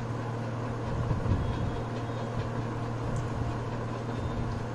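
Steady low hum over a constant wash of background noise, with no distinct sounds; the crochet work itself is not heard.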